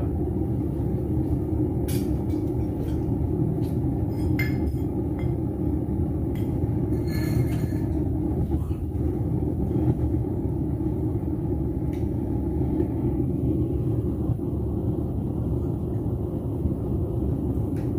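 Propane melting furnace burner running steadily, a low rushing noise, with a few light clinks in the first half.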